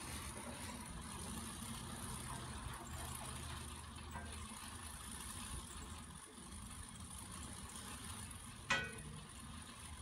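Strong wind blowing through an open window: a steady rush with a low rumble. One sharp knock sounds near the end.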